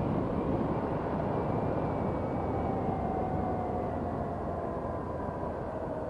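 Honda NT700V Deauville motorcycle riding along, its V-twin engine under heavy wind rush on a helmet-mounted microphone. The engine note drops gradually through the middle of the stretch as the bike eases off.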